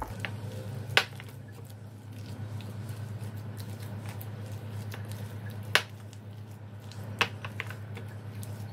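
Hands squishing and kneading wet chicken mince mixed with raw egg in a glass bowl, with a few sharp clicks, the loudest about a second in and just before six seconds, over a steady low hum.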